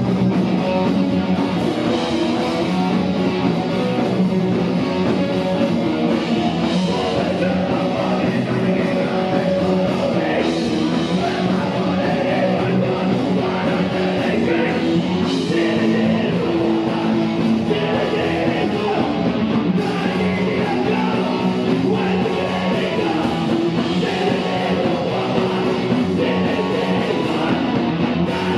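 Punk rock band playing live and without a break: electric guitar, drum kit and sung vocals.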